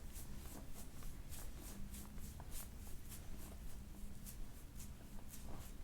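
Electric soft-tissue massage machine running with a steady low hum, with light swishing strokes about three times a second as it is worked over the body.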